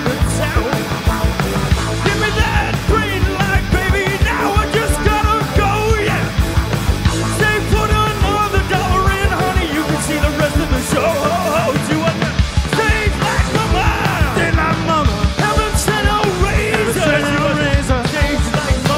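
Live rock band playing at full volume: drum kit, electric bass, electric guitar and a Roland stage piano, with a male lead voice singing and shouting over it.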